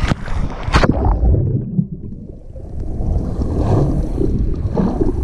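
Sea water splashing as a swimmer dives in with a handheld action camera, twice in the first second, then turning to a muffled underwater rumble and gurgling as the camera goes below the surface.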